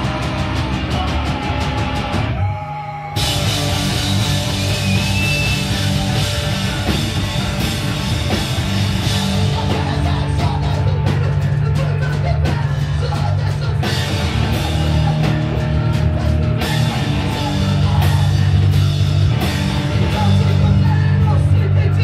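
A hardcore punk band playing live and loud: distorted electric guitar, bass and drum kit, with shouted singing. About two seconds in the band drops away for about a second, then crashes back in.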